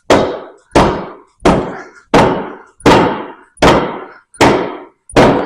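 A steady run of about eight mallet blows on a double-acting hydraulic farm cylinder, roughly one every three-quarters of a second, each with a short metallic ring, knocking at a piston that is stuck tight in the barrel.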